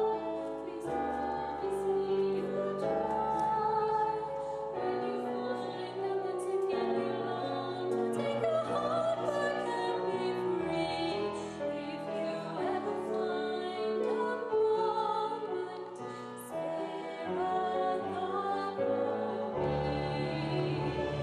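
Music: a vocal ensemble singing in an operatic, classical style, with held notes and chords changing every second or two over a moving bass line.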